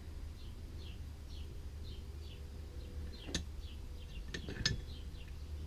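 A bird chirping over and over, short falling chirps about two or three a second, over a low steady hum. A few sharp clicks in the second half come from small carburetor parts and tools being handled.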